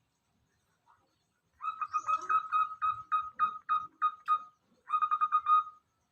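Zebra dove (perkutut) cooing: a run of short, evenly spaced notes, about three a second, then after a brief pause a quicker run of notes near the end.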